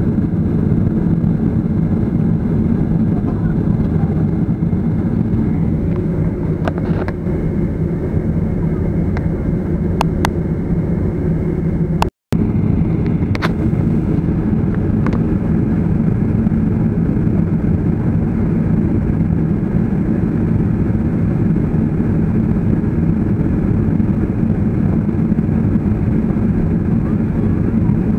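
Steady low hum of a jet airliner's engines and cabin air, heard from inside the cabin while the aircraft taxis. A few faint clicks sit on top, and the sound cuts out to silence for a moment about twelve seconds in.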